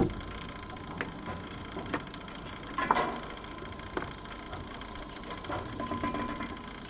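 Slow, even mechanical ticking, about one tick a second, over a steady low hum, with a brief pitched whir near the end.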